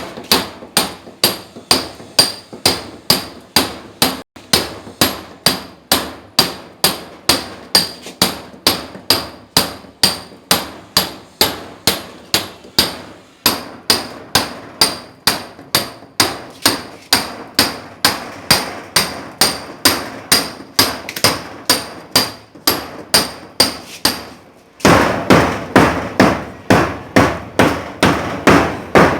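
Steady hand-hammer blows on a steel chisel, about two to three strikes a second, each with a bright metallic ring, chipping at masonry. About 25 s in the strikes turn louder and harsher for a few seconds.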